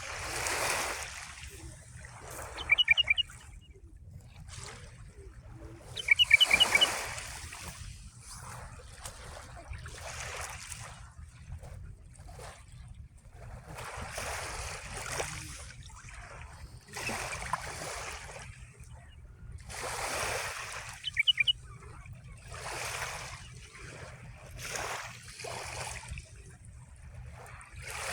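Small sea waves washing in and out every two or three seconds. Three times, a bird gives a quick run of four or five high chirps, louder than the waves.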